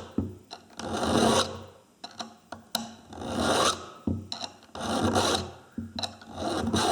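Chainsaw chain being sharpened with a hand file: four long, slow rasping strokes across the cutters, with light clicks between strokes as the file is lifted and set back.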